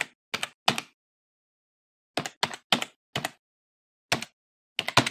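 Typing sound effect: about ten computer-keyboard keystrokes, single sharp clicks in uneven groups with dead silence between them.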